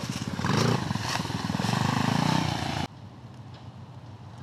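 Small engine of an off-road go-kart running under throttle as it drives down a slope, with a rise in revs about half a second in; the engine has bent valves. The sound cuts off abruptly about three seconds in.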